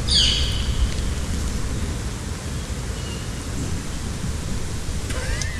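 Steady low rumble and hiss from a location recording with its gain boosted far up to the noise floor, with a brief bright rustle right at the start.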